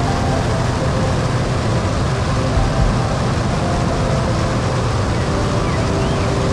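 Steady rush of wind with the drone of a Cessna 185's six-cylinder piston engine and propeller in cruise flight, heard through an externally mounted camera's microphone.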